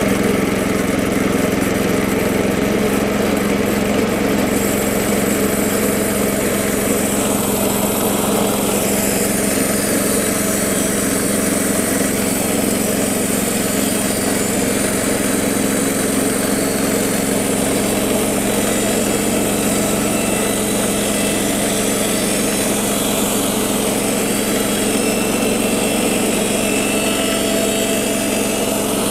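Woodland Mills HM126 portable bandsaw mill's gas engine running steadily under load as the band blade cuts along a weathered white oak slab.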